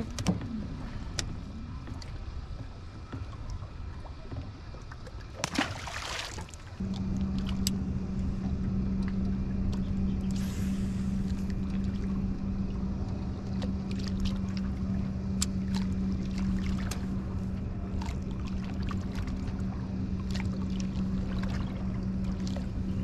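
Electric bow-mounted trolling motor switching on about seven seconds in and then running with a steady hum. Scattered light clicks are heard throughout.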